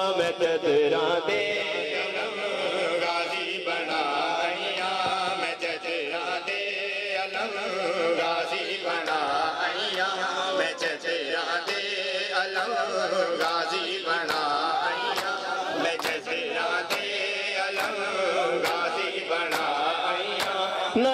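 Men's voices chanting a Muharram noha, with the slaps of matam, hands striking bare chests, keeping a steady beat that is clearer in the second half.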